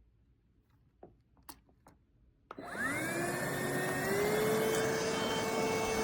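A few faint clicks, then the iwoly C150 cordless vacuum cleaner is switched on about two and a half seconds in: its motor spins up with a rising whine that settles into a steady run.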